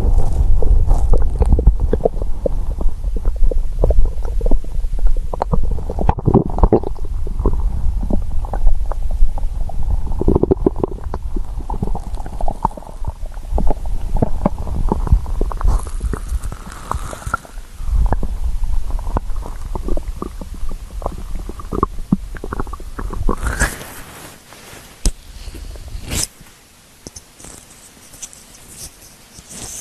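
A hungry stomach gurgling and rumbling, close-miked: dense, irregular bubbling pops and low rumbles that thin out and stop about three-quarters of the way through. Near the end come a brief rustle and a single sharp click.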